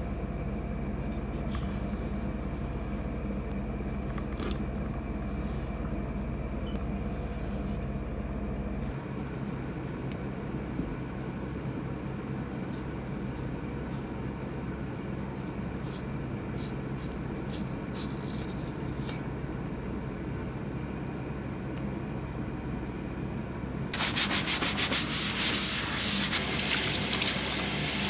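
Knife work on Pacific saury fillets, skinning them, with faint clicks of the blade on a plastic cutting board over a steady low hum. About 24 s in, tap water runs and wet hands scrub the plastic board; this scrubbing is the loudest part.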